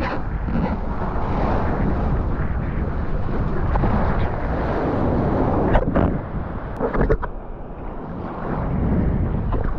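Rushing ocean water and wind over a surfer's GoPro microphone. A few sharp splashes or knocks come a little past the middle.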